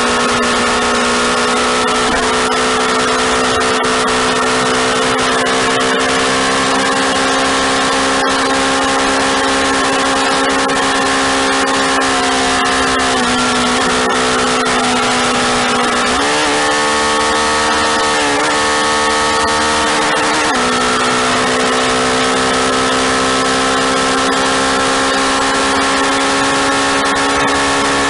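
Police motorcycle engine running hard at a steady highway speed under heavy wind rush. The engine note shifts down slightly, then up and back down again around the middle.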